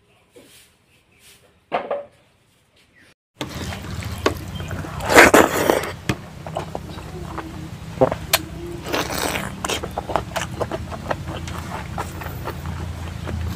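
Close-miked eating by hand: rice and curry worked between the fingers, with chewing and lip smacks. It comes in as scattered clicks and two louder noisy bursts over a steady low hum, after a nearly quiet first few seconds.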